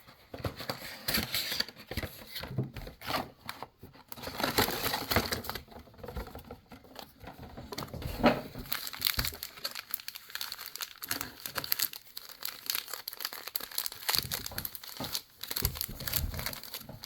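Plastic wrapping on a trading-card box crinkling and tearing as it is unwrapped, in irregular crackles with one sharper knock about eight seconds in.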